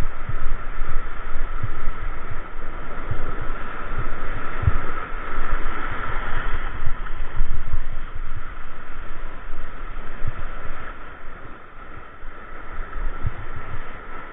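Wind buffeting the microphone over the steady wash of breaking surf, with irregular low thumps from the gusts hitting the mic.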